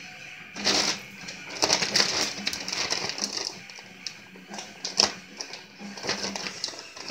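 Kittens scrambling about a wire crate: irregular scratching, clicks and rattles, with a kitten scratching in cat litter in the middle of the stretch, over a faint steady hum.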